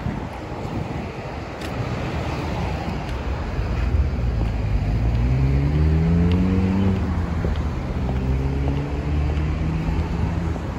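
Road traffic with a steady low rumble of passing cars. About five seconds in, one vehicle's engine rises in pitch as it accelerates, then holds a steady note.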